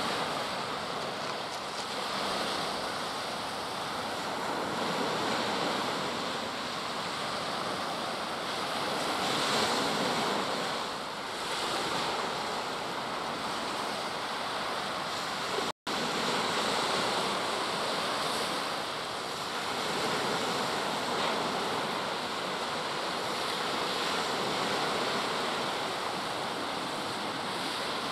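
Sea waves washing onto the beach, with wind on the microphone: a steady rushing that swells and eases. It cuts out for an instant about sixteen seconds in.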